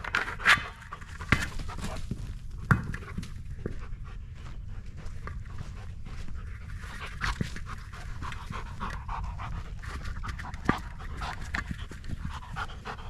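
Dog panting steadily, with a few sharp knocks.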